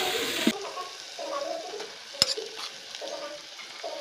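Frying sizzle that cuts off suddenly about half a second in, followed by a metal spatula scraping and knocking against a wok and a steel pot as the fried egg masala is scraped out, with one sharp clank about two seconds in.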